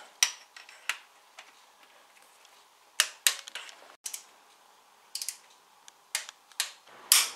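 Click-type torque wrench breaking over at 10 Nm as the camshaft housing bolts are tightened in turn: sharp single clicks every second or two, a few in quick pairs.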